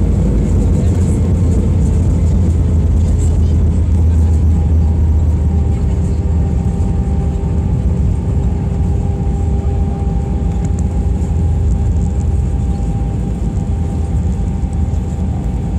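Cabin noise of an Airbus A319 rolling out on the runway after touchdown: a loud, steady low rumble of the engines and landing gear. Two steady whining tones come in about five seconds in, and the noise eases a little toward the end as the aircraft slows.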